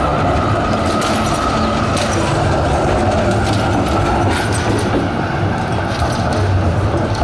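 An electric tram running past on street tracks amid city traffic: a steady rumble with a faint high whine and a few scattered clicks.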